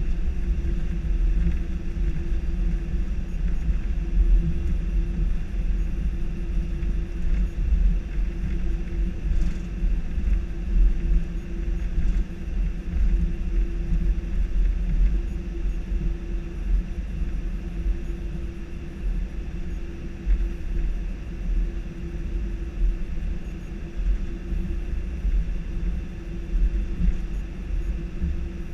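Steady low rumble in the cockpit of an Airbus A319 rolling along the runway after touchdown: the wheels on the runway and the engines, with a constant hum underneath. The rumble eases slightly past the middle as the aircraft slows.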